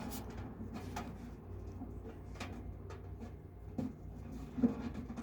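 Scattered light clicks and knocks of things being handled, about five in all, over a steady low hum.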